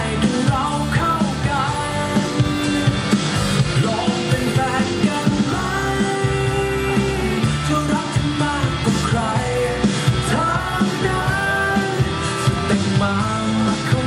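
Thai pop song with a steady beat playing loudly over stage PA speakers.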